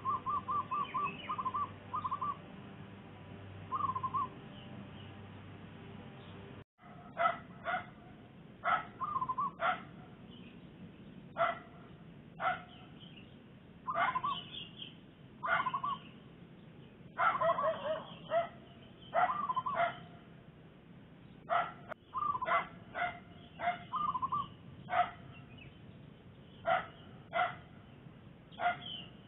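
A zebra dove's rapid run of short cooing notes, twice in the first few seconds. About seven seconds in, after a sudden break, a dog starts barking repeatedly, single barks and short runs spaced a second or two apart.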